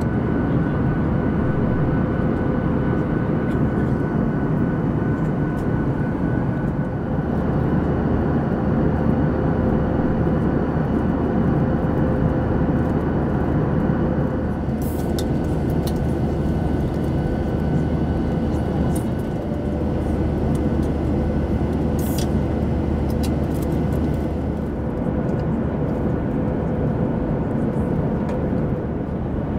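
Steady cabin noise of a Boeing 737-800 in flight: the even rush of engines and airflow with a faint steady hum, broken by a few brief sharp clicks about halfway through and again a little later.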